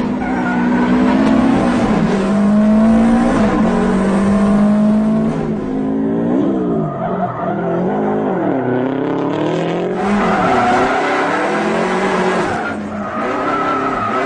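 Subaru Impreza rally car's engine revving hard while drifting, its pitch swinging up and down again and again as the throttle is worked, with a tyre squeal near the end.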